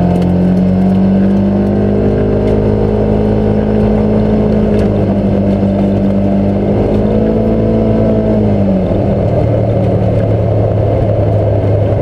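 Polaris Ranger Northstar XP 1000 UTV's twin-cylinder engine running under way, heard from inside its closed cab. The engine pitch climbs a little at the start, holds steady, then drops about nine seconds in as the vehicle slows.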